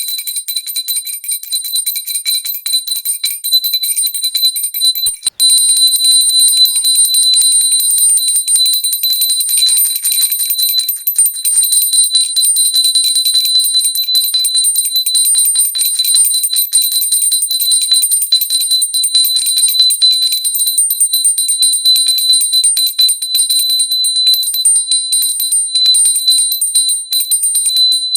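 Pooja hand bell rung continuously with rapid clapper strikes, a high ringing tone sustained over the strikes. It breaks off briefly about five seconds in, then goes on louder.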